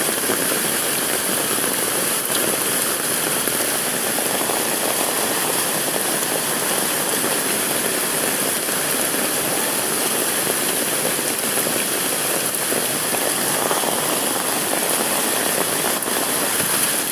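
Steady, unbroken roar of a river in heavy flood, the swollen water rushing fast.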